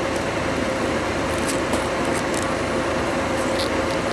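Concrete truck machinery running steadily, an engine drone with a constant mid-pitched whine over it.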